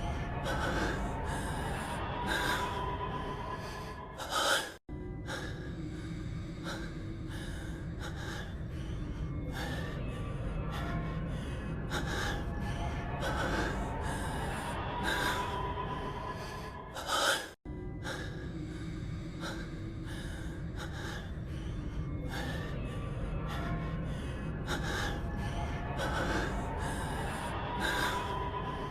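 A man's heavy breathing and gasps over music. The same clip of about 13 seconds repeats twice, each pass ending in a loud gasp and a split-second gap of silence before it starts again.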